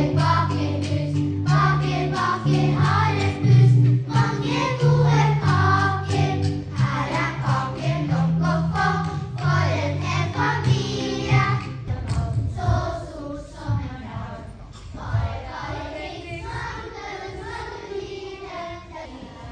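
A group of children singing together over instrumental accompaniment with a steady bass line. About twelve seconds in the accompaniment stops and the voices carry on more quietly.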